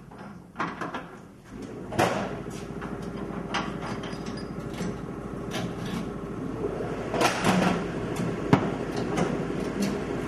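Pneumatic impact wrench hammering as it loosens the truck's torsion bar bolts, a steady rapid rattle starting about a second and a half in, with a few sharp metal knocks.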